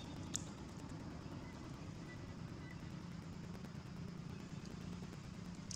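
Steady low rumble of motor vehicles running in the distance, with one brief faint click about half a second in.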